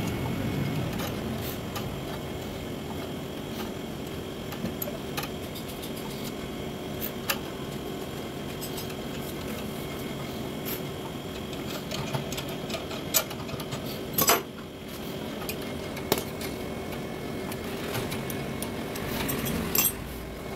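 Metal clicks and clinks from a flaring tool being worked onto the end of a copper pipe to flare it, a handful of sharp taps spread out, the loudest about fourteen seconds in, over a steady low hum.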